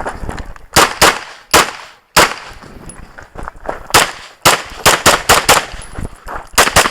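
Rapid pistol shots from a competitor's handgun firing a timed classifier stage string. There are shots about a second in, a pause of nearly two seconds in the middle, then quick pairs and strings of shots toward the end.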